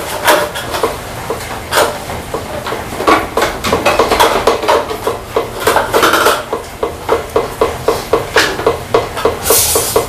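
A crow pecking at and knocking an orange plastic toy around in a plastic feeding dish: a run of hard plastic clicks and clatters, settling into steady tapping of about four knocks a second in the second half. A short rustle comes near the end.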